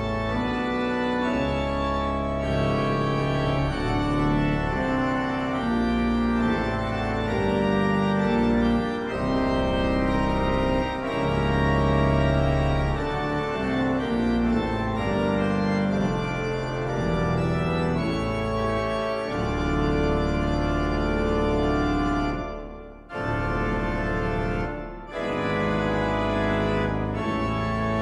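Sampled pipe organ, a Hauptwerk virtual version of the Walcker & Cie organ of the Grote Kerk in Wildervank, playing an improvisation on a hymn tune: full held chords over sustained low bass notes. The sound breaks off briefly twice near the end between phrases.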